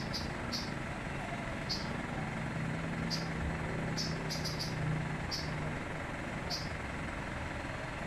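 A small bird pecking at its reflection in a van's side mirror: about nine short, sharp high taps at irregular intervals. Behind them runs a steady background of vehicle noise, with a low engine hum in the middle.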